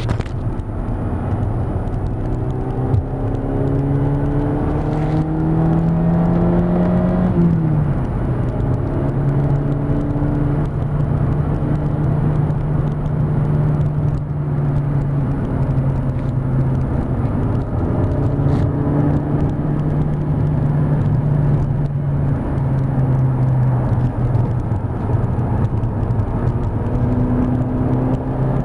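Mk5 Golf GTI's 2.0-litre turbocharged four-cylinder engine heard from inside the cabin at track speed, over tyre and wind noise. The engine note climbs, drops sharply about seven seconds in, then runs fairly steady with small rises and falls.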